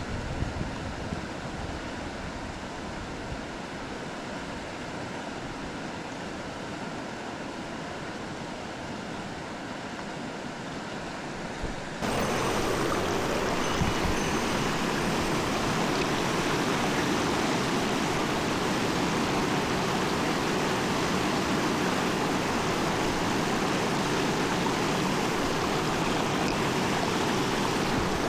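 Mountain stream water rushing steadily over rocks. About twelve seconds in, the sound cuts abruptly to a louder, hissier rush of water.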